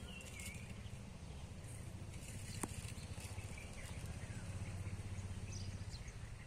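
Outdoor ambience: a steady low rumble with a few faint bird chirps and a single sharp click about two and a half seconds in.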